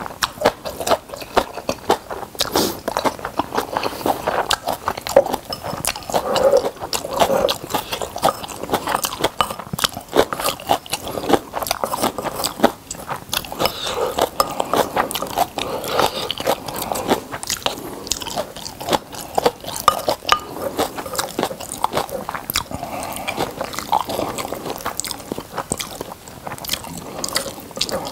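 Close-miked chewing of a mouthful of rice and kimchi: wet smacking and crunching bites in an irregular stream, with a spoon scraping the rice bowl at times.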